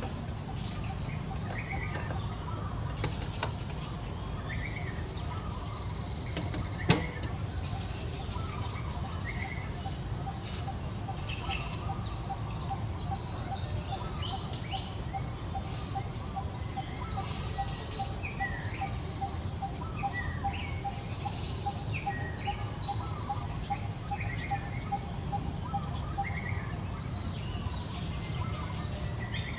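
Small birds chirping now and then, short high calls over a steady low rumble. Through the middle stretch a run of short, even notes repeats about three times a second, and there is a single sharp click about seven seconds in.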